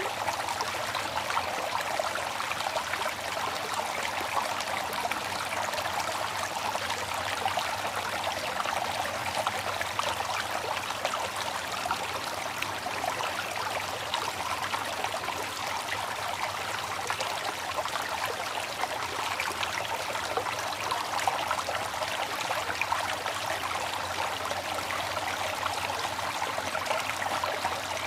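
Water trickling and splashing steadily as it circulates through a running nano reef aquarium and its filtration.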